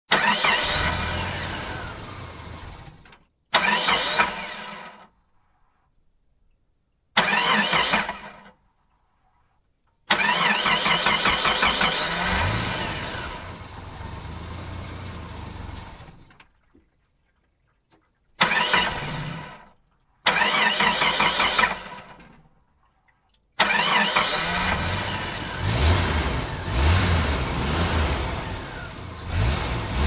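A series of about seven separate car engine start-ups with brief silent gaps between them. Each engine catches suddenly, revs up and then fades or cuts off. The last one runs on with repeated revving.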